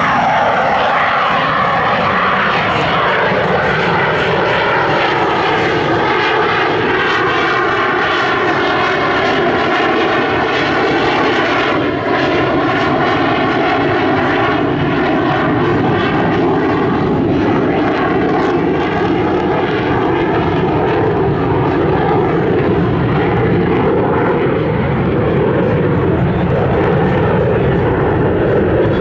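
Dassault Rafale fighter's twin Snecma M88 turbofan jet engines, loud and continuous, the tone sweeping slowly up and down as the jet moves through the sky.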